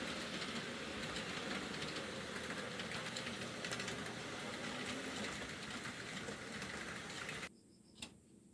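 1/80-scale model electric train running on its track: a steady rolling rattle and motor whir. It cuts off abruptly about seven and a half seconds in, leaving only a few faint clicks.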